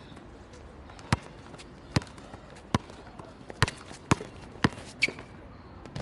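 Basketball being dribbled on an outdoor asphalt court: about seven sharp bounces that come closer together toward the end.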